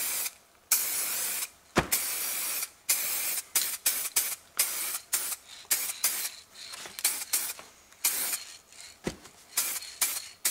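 Aerosol can of black spray paint hissing in bursts: two longer sprays in the first few seconds, then many quick short bursts, two or three a second, with a couple of light clicks.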